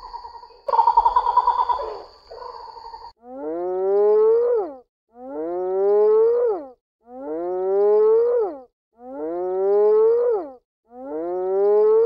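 An animal call repeated five times at even spacing, each one identical: a pitched call rising over about a second and a half, then dropping off abruptly. Before it comes a steady, pitched animal sound that swells louder for about a second near the start.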